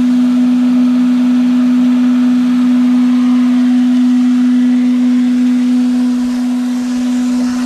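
Micro-hydro turbine and generator running under about 50 psi of penstock pressure: a loud, steady hum at one pitch over a continuous hiss.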